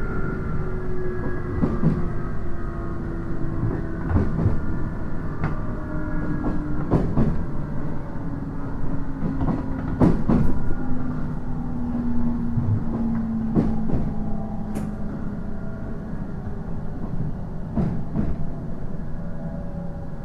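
Interior running sound of a JR East 719 series electric train, a unit noted for an abnormal running noise, slowing down: the motor and gear whine falls steadily in pitch over a constant rumble. Sharp wheel clicks over rail joints come at uneven intervals.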